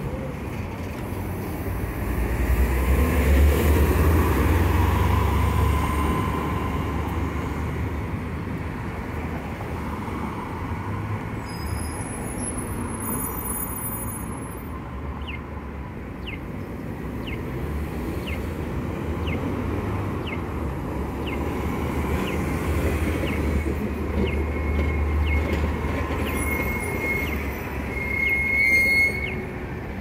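Downtown street traffic: cars and a bus passing, their engine and tyre rumble swelling and fading. From about halfway through, a vintage pedestrian walk-signal chirp tone repeats steadily, and a high squeal sounds near the end.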